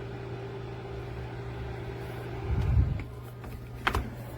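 Ceramic space heater's fan running with a steady hum while the heater lies tipped over in its tip-over error; the hum stops about three seconds in with a low thump, then a few sharp clicks follow.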